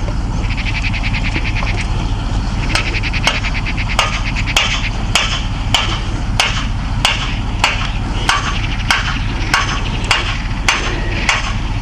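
Evenly spaced hammer-like knocks from woodcutters' work, about three strikes every two seconds, starting about three seconds in and running on steadily.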